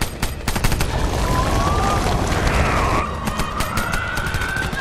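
Film action soundtrack: sharp cracks like gunfire in the first second, then one long wavering wail that slowly rises in pitch over the rest, above a dense low din.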